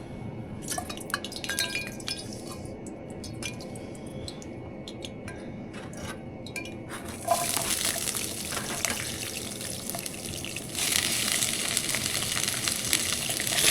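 A few small clicks and clinks of cooking utensils, then food starts sizzling in hot oil in a pan about seven seconds in. The frying hiss grows louder about eleven seconds in.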